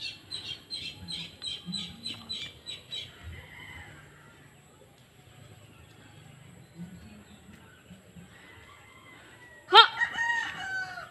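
A rooster crowing loudly near the end, a single multi-note crow lasting about a second. Before it, a bird's high chirps repeat quickly, about three a second, for the first few seconds.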